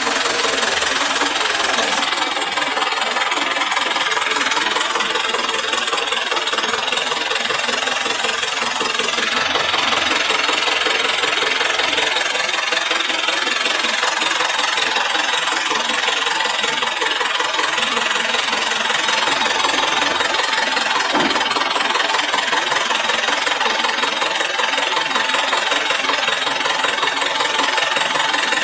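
The drilling rig's engine running steadily and loudly, a little louder from the very start.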